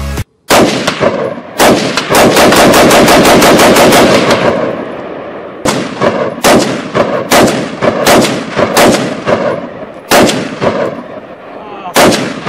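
AR-15-style carbine firing: a few shots, then a rapid burst of automatic fire lasting about three seconds, then a string of shots about two or three a second, with two more near the end.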